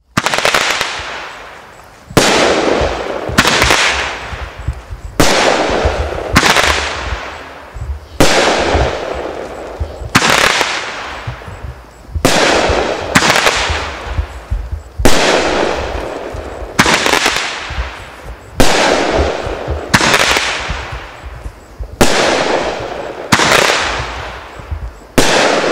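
Black Cat 'The Big Blast' 500-gram, 16-shot repeater cake firing shot after shot, a sharp bang roughly every one to two seconds, each trailing off in a fading crackle.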